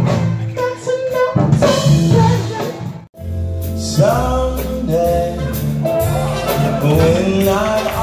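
Live Motown-style soul vocal group singing lead and backing harmonies over a band with keyboards and drums. About three seconds in the sound cuts out for an instant, and a different performance follows, with a steady bass line and singing.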